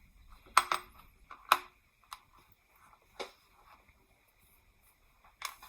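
Light clicks and taps of small plastic kit parts and tools being handled on a work surface, about six in all. The sharpest come just over half a second in and about a second and a half in.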